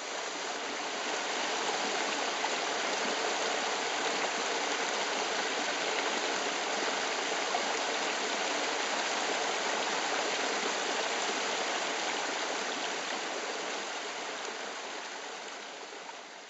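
Fresh spring water bubbling out from under a rock and spilling over stones into a small stone-lined channel: a steady rushing of water that swells in the first couple of seconds and fades away near the end.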